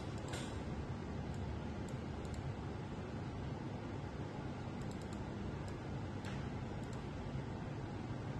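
A few faint, scattered clicks of a computer keyboard and mouse as a spreadsheet value is edited, over a steady low hum.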